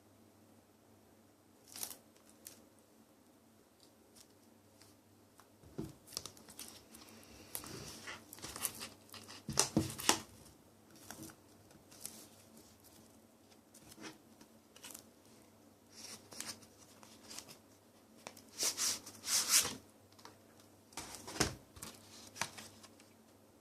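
An album package being handled and unwrapped by hand: plastic wrapping crinkling and tearing, with scattered clicks and taps. The loudest rustles come about nine seconds in and again near the end.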